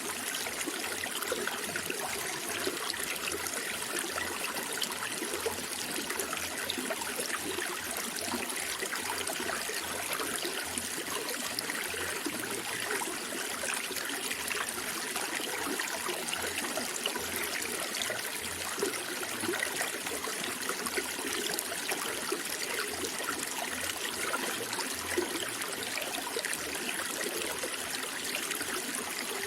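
Running water, a steady stream with many small splashes and no pauses.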